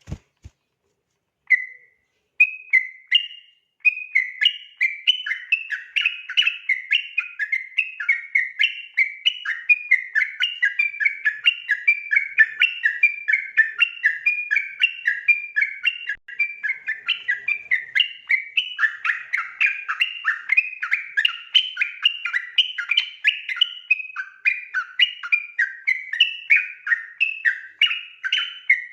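Yellow-vented bulbul (trucukan) singing its 'ropel' song: a couple of short opening phrases, then a long, unbroken run of fast chattering notes, about three to four a second.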